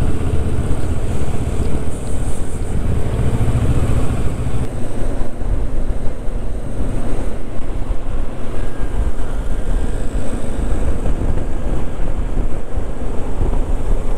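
Motorcycle on the move, heard from the bike itself: wind buffeting the camera microphone in a steady rumble, with the engine running underneath.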